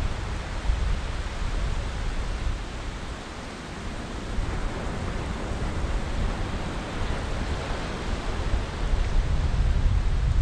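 Wind buffeting the microphone over a steady hiss of sea surf on an open beach. The gusting rumble eases briefly about three seconds in, then builds again towards the end.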